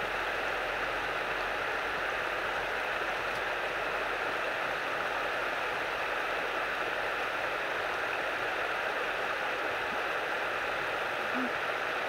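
Steady, even rushing hiss that holds at one level throughout, with no bird calls.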